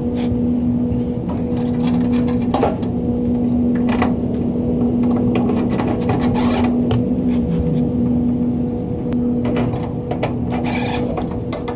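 Cordless drill-driver motor running with a steady hum as it drives a self-tapping screw into the plastic collar of a gas grill's igniter module, with clicks and scraping from hands and parts against the sheet-metal frame.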